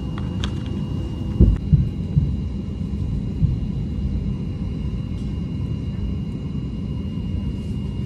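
Steady low rumble of an airliner cabin on the ground before takeoff, with a thin steady whine above it. A few soft thumps and clicks between about one and three and a half seconds in come from handling a cardboard box and a small plastic earplug case.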